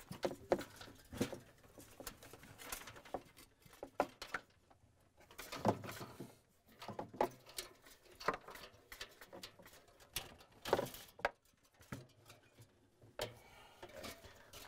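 Scattered light clicks, taps and rustles of a gloved hand working a refrigerator defrost heater free of the evaporator coils, with a couple of louder knocks about six and eleven seconds in.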